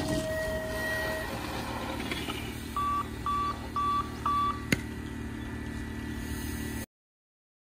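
BMX start gate and its electronic tone system: a long tone ends about a second in as riders roll off the dropped gate. About three seconds in come four short, evenly spaced beeps, followed by a single click. The sound cuts out completely near the end.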